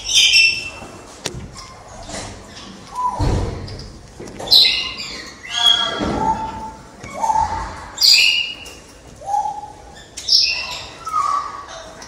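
Wreathed hornbill giving short, loud calls over and over, about one every second and a half, echoing in a large room. Now and then a low thud falls between the calls.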